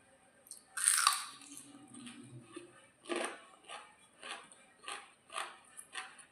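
A person bites into crunchy food with a loud crunch about a second in, then chews steadily in short even strokes, about two a second, close to the microphone.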